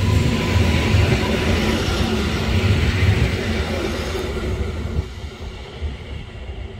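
EN57ALd electric multiple unit passing close by, its wheels rumbling over the rails, the sound easing off about five seconds in as the train draws away.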